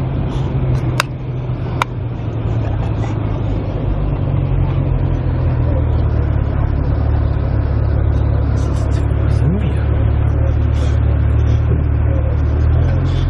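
Car cabin noise while driving: a steady low rumble of engine and tyres on the road. Two sharp clicks come about a second in.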